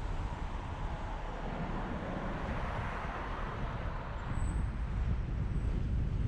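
Steady road and wind noise from a moving car: a low rumble under an even hiss.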